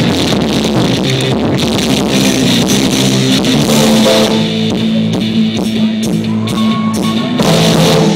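Live pop-rock band playing electric guitars and drum kit, recorded on a cheap phone. About halfway through the band holds long sustained notes, then builds to a loud final chord that stops at the very end.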